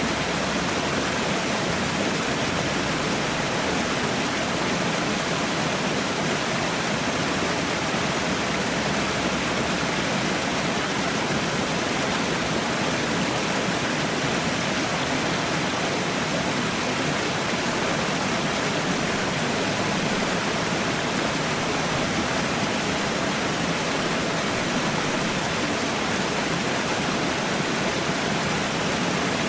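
Falling water rushing steadily, a continuous even roar of a waterfall without change.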